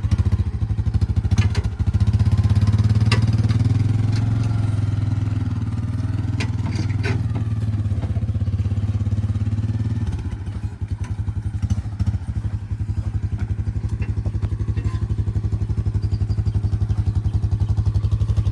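A small engine running steadily, a little louder and higher from about two seconds in until it eases back near ten seconds, with a few light clanks over it.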